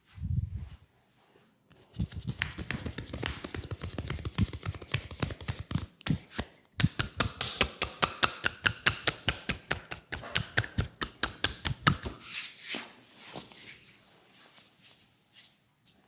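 Rapid, rhythmic tapping massage strokes on a leg, about six sharp strikes a second for roughly ten seconds. Near the end they give way to softer rustling.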